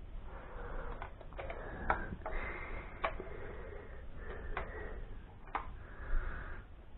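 Ratchet spanner working the inlet manifold nuts of a Ford Pinto engine: short runs of rapid ratchet ticking, broken by four or five sharp metal clicks.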